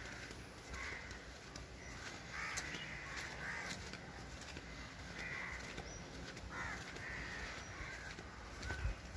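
Crows cawing: several harsh calls, repeated every second or two.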